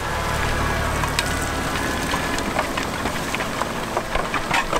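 Disc harrow and packer roller on a slurry tanker working stubble: a steady machine drone under many small clicks and knocks of soil and stubble thrown against the implement.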